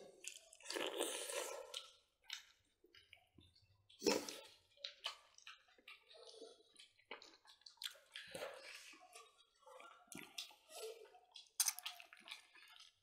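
Wet chewing and lip-smacking of people eating smoked pork ribs with their hands, heard close to a clip-on microphone, mixed with squelchy sounds of fingers in saucy food; it comes in irregular short smacks and clicks with brief pauses.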